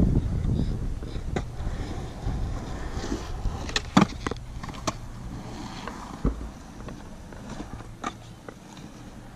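Skateboard rolling on concrete, with sharp clacks and knocks as the board passes closest about four seconds in, and a couple of single knocks later. A low wind rumble on the microphone dies away over the first few seconds.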